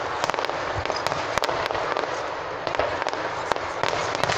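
Aerial fireworks bursting in a dense stream of sharp pops and crackles, with one louder bang about a second and a half in.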